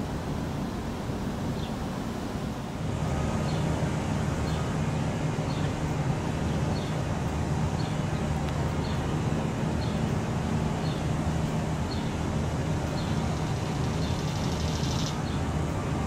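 Steady low mechanical rumble with a hum in it, stepping up louder about three seconds in and then holding level.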